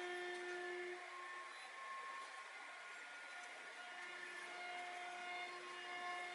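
Faint steady background hum and hiss with a few held tones; one of the tones drops out about a second in and comes back a few seconds later. No distinct handling clicks or knocks.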